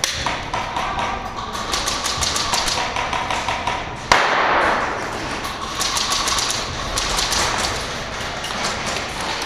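Airsoft guns firing in rapid runs of sharp clicks and pops, echoing in a large warehouse hall, with a short loud burst of hiss about four seconds in.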